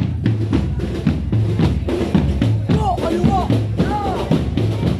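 Parade marching drums playing a steady march beat, with snare and bass drum strokes.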